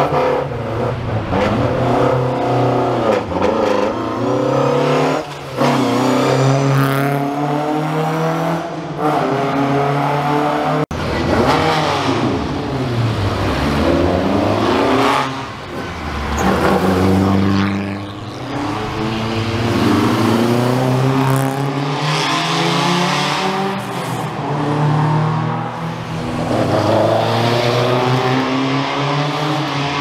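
Rally car engines revving hard and passing close by, the pitch climbing and dropping again and again as the cars accelerate through the gears and lift off.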